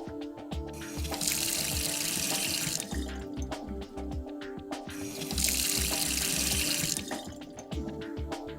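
Water running from a tap in two spells of about a second and a half each.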